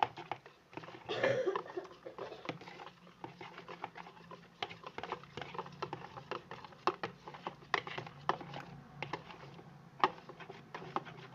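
A spoon tapping and scraping irregularly against a bowl as slime ingredients (clear glue and borax water) are stirred, with a brief louder rustle about a second in, over a faint steady hum.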